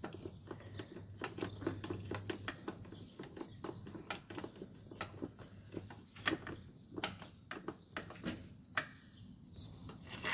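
Irregular light metallic clicks and taps, several a second, with a few sharper knocks, from a socket wrench on long extensions working the starter motor's 15 mm upper mounting bolt.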